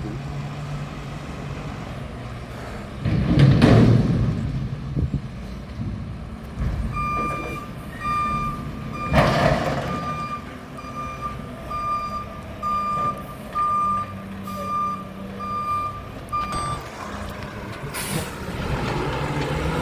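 Mack front-loader garbage truck with its diesel engine running and its backup alarm beeping about once a second for around ten seconds. Loud air hisses of the air brakes come about three seconds in, in the middle, and near the end.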